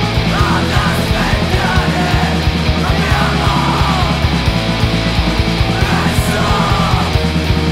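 Screamo rock song: distorted electric guitars, bass and fast, driving drums, with screamed vocals coming in and out over the top.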